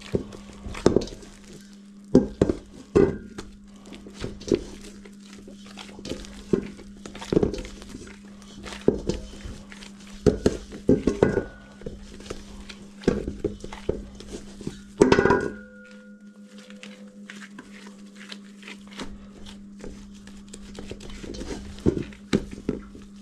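Gloved hands working pie-crust dough in a stainless steel mixing bowl: irregular knocks and scrapes of hands and dough against the metal bowl. About fifteen seconds in, one louder knock leaves the bowl ringing briefly.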